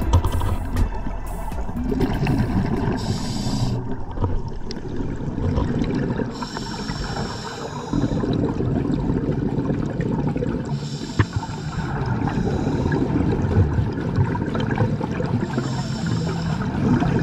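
Scuba regulator breathing underwater: a hiss on each inhale, recurring about every four and a half seconds, with exhaled bubbles gurgling in between.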